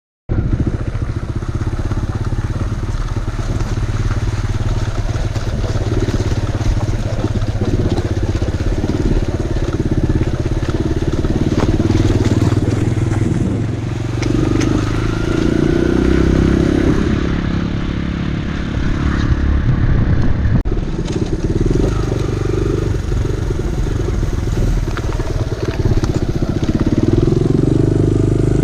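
Kawasaki KLX150 dual-purpose dirt bike's single-cylinder four-stroke engine running under way, its revs rising and falling with the throttle. It starts abruptly right at the beginning.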